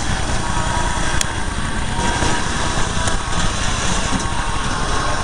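Toy train running along its track, its small electric motor whirring steadily with the wheels rattling, and a sharp click about a second in and another about three seconds in.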